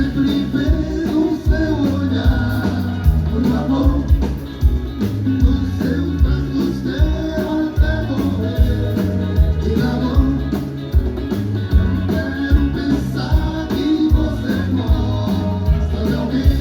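Live band playing a song: a singer over a drum kit keeping a steady beat.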